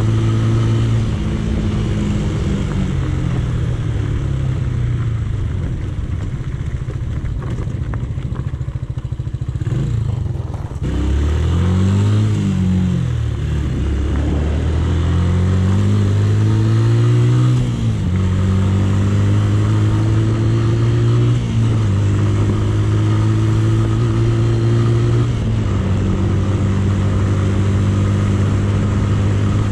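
Romet K125's 125cc single-cylinder four-stroke engine running under way on a dirt road. Its pitch sinks about two seconds in, swings up and down twice around the middle with a sharp drop between, then holds a steady cruise.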